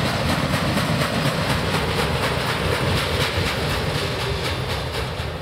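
Canadian National freight train's boxcars rolling past on the rails, the wheels clicking over rail joints in a rapid steady rhythm over a continuous rumble. The sound eases slightly near the end as the tail of the train moves away.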